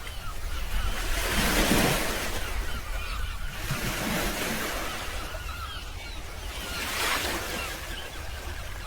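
Waves washing in, swelling and fading every two to three seconds, over a low wind rumble on the microphone.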